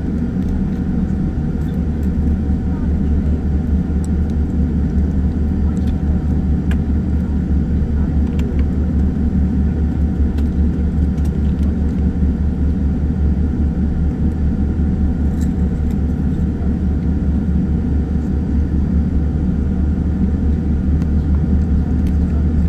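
Steady cabin noise inside a Boeing 787-9 as it taxis: a deep, even hum and rumble from the engines at taxi power and the air-conditioning, with faint scattered ticks.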